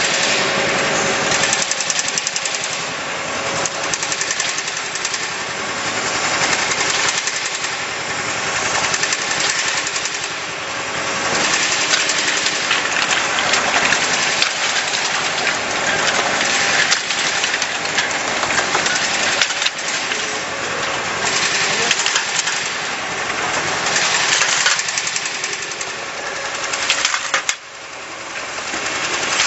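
Vial powder filling and stoppering machine running: a continuous mechanical clatter full of fine clicks, with glass vials clinking against each other as they are carried through the star wheels and filling station.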